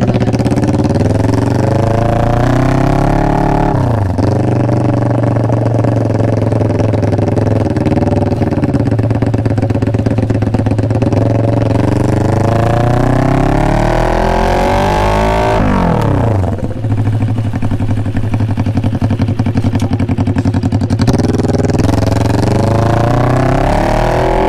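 Kawasaki Ninja ZX-4RR inline-four running through an SC-Project exhaust, being revved: the engine note climbs slowly and drops back sharply about four seconds in and again about sixteen seconds in, then rises again near the end.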